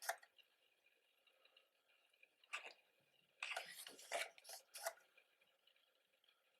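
Brief rustling and handling of a photo book and its packaging: a short rustle at the start, another about two and a half seconds in, and a run of several quick rustles and taps a second later, with near silence between.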